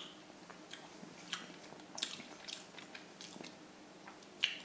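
A person chewing a mouthful of chili con carne with mince and kidney beans: faint, wet mouth clicks and smacks, irregular, about one or two a second.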